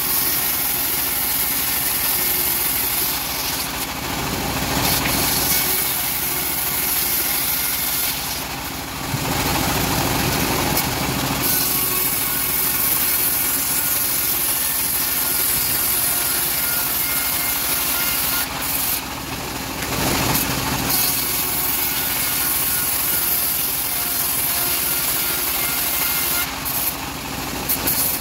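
Engine-driven homemade band sawmill running and sawing teak into planks: a steady engine drone under the high hiss of the blade in the wood. The hiss breaks off briefly several times.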